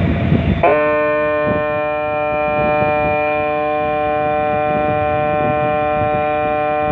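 Ship's horn sounding one long, steady blast that starts just under a second in.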